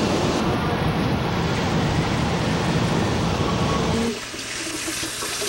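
Steady road and engine rumble inside a moving car, cut off suddenly about four seconds in by water running from a tap.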